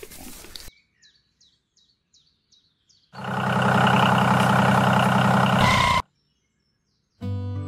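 Small diesel engine running steadily for about three seconds, then cutting off abruptly. Before it, faint bird chirps in near quiet; music starts near the end.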